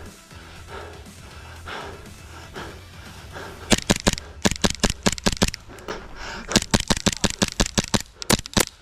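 Airsoft gun firing rapid shots: a quick string of sharp cracks starting about four seconds in, a brief pause, then a second rapid string.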